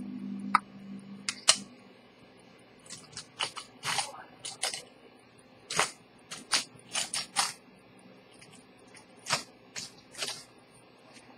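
Sharp light clicks and taps at irregular intervals, several coming in quick clusters of two or three. A brief low hum sounds in the first second or so.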